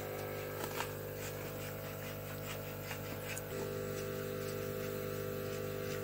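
Steady electrical hum made of several fixed tones, with a higher tone joining about three and a half seconds in, and a few faint clicks.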